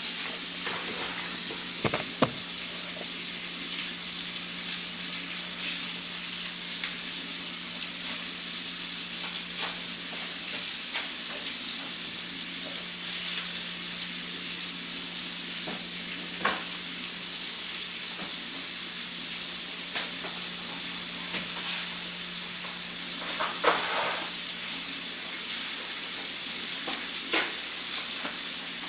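Bacon and pan-sausage patties frying in a stainless steel skillet: a steady sizzle of hot fat, with a few sharp pops scattered through it.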